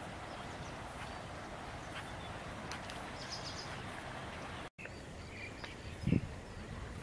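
Outdoor wetland ambience: a steady background hiss with a few faint, high bird chirps around the middle. It breaks off for an instant past the middle, and a short low thump follows near the end.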